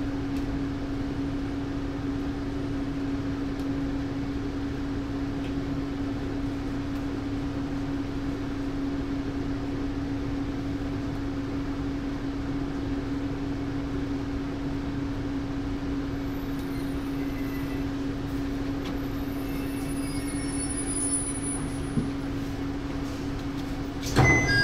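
Diesel railcar running, heard from the front of the train: a steady engine hum with even rumbling running noise as it rolls into a station. A sudden louder noise breaks in near the end.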